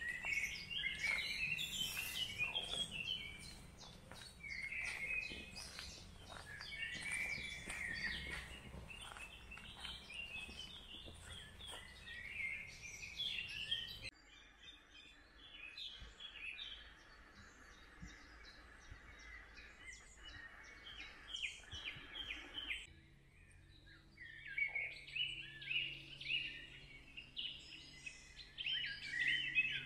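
Several songbirds singing and chirping in trees, in quick repeated trills and calls. The background changes abruptly twice.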